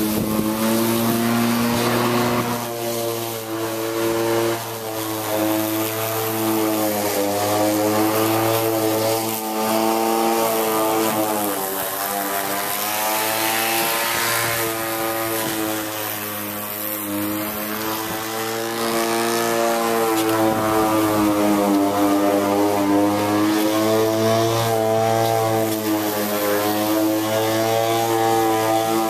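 Black & Decker cordless electric lawn mower running and cutting grass: a steady whir of motor and spinning blade, its pitch wavering slightly up and down as it works through the grass.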